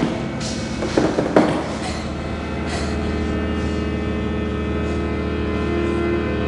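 Tense horror-film score: a steady drone of held tones, with three sharp hits in the first second and a half.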